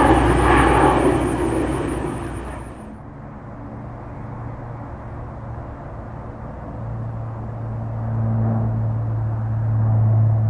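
Four-engine C-130 Hercules turboprop passing overhead, its loud engine and propeller noise fading over the first few seconds. After an abrupt change, a low steady propeller drone builds up as another Hercules flies in low, loudest near the end.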